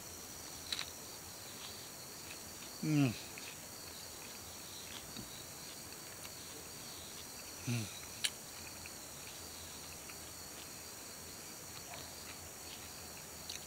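Steady high-pitched evening insect chorus, with a man giving two short closed-mouth hums of enjoyment while eating, about three and eight seconds in, and a couple of faint clicks.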